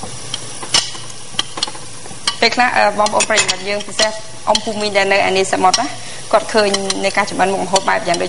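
Food sizzling in a frying pan, with the repeated clicks and scrapes of a utensil stirring it. From about two seconds in, a pitched, voice-like sound comes and goes over it.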